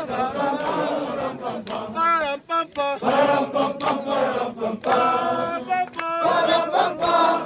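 A large group of Tanzanian mountain porters singing a Swahili welcome song together in chorus. About two seconds in, one voice carries on alone briefly before the whole group comes back in.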